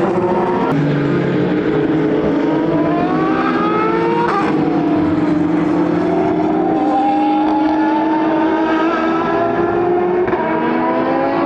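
Several endurance race cars running together, their engines climbing in pitch as they accelerate, with a sharp pitch drop about four seconds in before the engines climb again.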